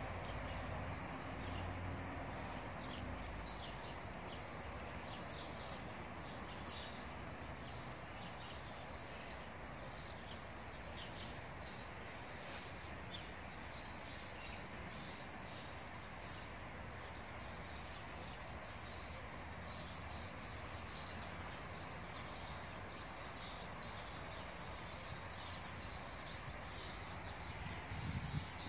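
A bird repeating one short, high chirp at an even pace, a little more than once a second, over steady outdoor background noise with other faint chirps.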